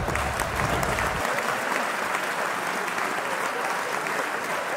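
A crowd applauding with steady clapping; a low rumble underneath stops about a second in.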